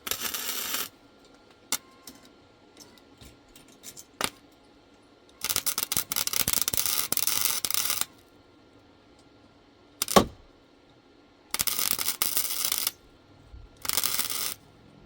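MIG welder laying short tack welds on a steel frame: four bursts of arc crackle, the longest about three seconds. Sharp metallic knocks fall between the bursts, the loudest about ten seconds in.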